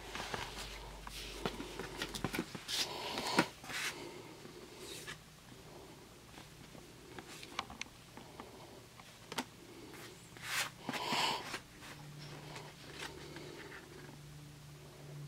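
Handling noise: rustling and light taps of trading cards, paper and a plastic sheet protector being moved about, with a faint low hum underneath.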